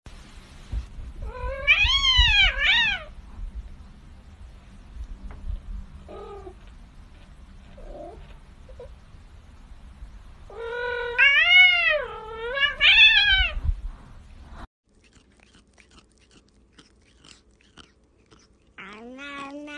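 Domestic cat meowing in loud, drawn-out calls that each rise and fall in pitch: two near the start, a few short faint ones after, then three more later on.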